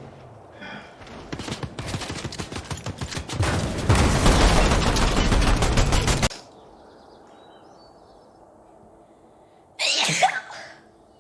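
Rapid gunfire from a shooting video game: a fast run of shots builds into a loud, continuous volley that cuts off suddenly about six seconds in. Near the end a single short, sharp outburst with a sliding pitch follows.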